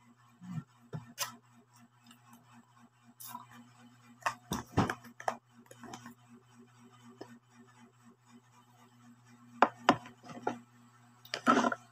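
Eating sounds: a metal spoon clinking and scraping against a plate and a plastic food container, in scattered sharp taps that come in a few short clusters, with a low steady hum underneath.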